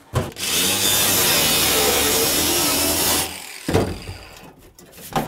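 Cordless angle grinder with a cut-off wheel cutting through the sheet-steel floor pan of a 1990 Nissan 240SX, a steady grinding screech for about three seconds that then stops, followed by a couple of sharp knocks.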